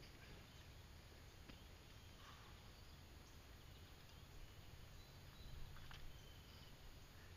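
Near silence: faint outdoor ambience, a steady low rumble with a few faint short chirps and clicks.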